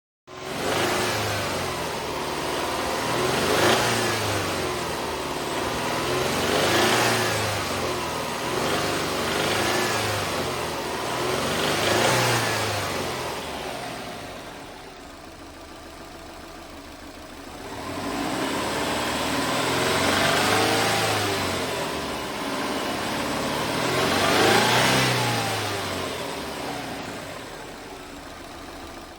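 2003 Subaru Legacy 2.0GT's EJ20 turbocharged flat-four engine being blipped about seven times, the pitch rising and falling back each time, with a quieter idle in the middle and near the end. The engine has an abnormal noise that the owner is investigating and fears may be bearing trouble; the change to 10W-50 oil has not cured it.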